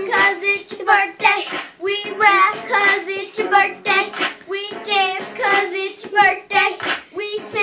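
A young girl singing into a handheld microphone in a rhythmic, chant-like delivery.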